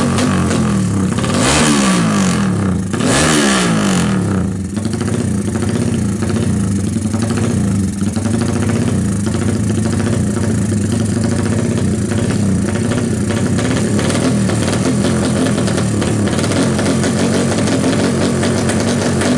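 Honda GL Pro drag bike's single-cylinder four-stroke engine, bored up to 225cc, revved twice in quick rising-and-falling blips in the first few seconds, then left idling steadily with its pitch wavering slightly.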